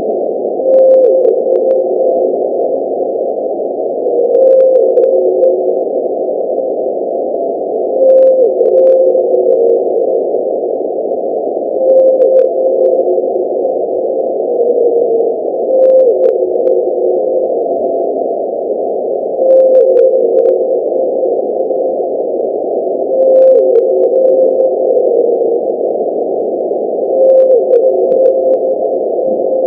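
Homemade blue whale call sound effect: a low tone held, then dropping in pitch in steps, repeated about every four seconds, some eight times, over a steady band of muffled noise.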